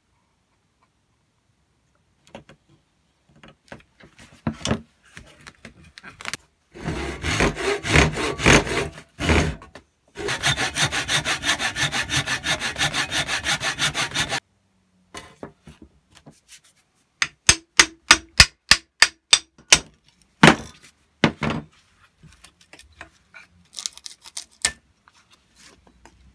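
Hand sanding or scrubbing on a rusty cast-iron plane body: irregular scrapes, then a few seconds of rapid, even back-and-forth strokes, then separate sharp strokes about three a second.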